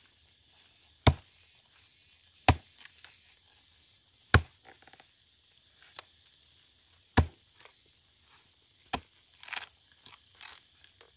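An axe chopping into a dead tree stump: four heavy strikes one to three seconds apart, then a few lighter knocks and crackling wood near the end.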